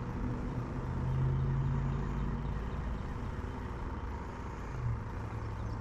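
A steady low engine hum, like a motor idling, with its pitch shifting slightly shortly after the start and again near the end, over a constant rushing background.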